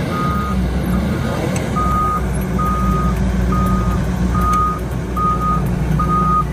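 Heavy machine's reversing alarm beeping at one steady pitch, about once a second, over the steady low running of a diesel engine.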